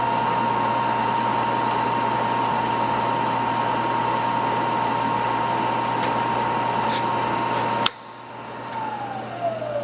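Acer Ultima variable-speed knee milling machine running with its spindle turning and the quill power feed engaged, a steady whine over a machine hum. About eight seconds in there is a click and the running noise cuts off, followed by a falling whine as the machine winds down.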